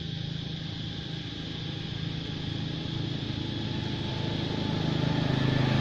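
A motor vehicle's engine running steadily, growing louder toward the end.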